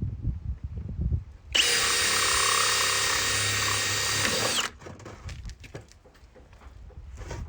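Power drill running a hole saw through a plastic bucket: one steady run of about three seconds that starts about one and a half seconds in and stops abruptly, with light handling knocks before and after.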